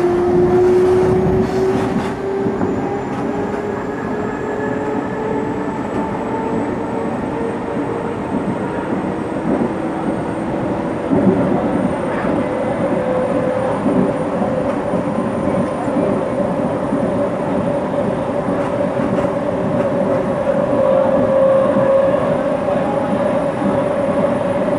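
CPTM Series 1700 electric multiple unit running, its traction motors whining in several steady tones that climb slowly in pitch as the train gathers speed, over a rumble of wheels on rail. A single knock about eleven seconds in.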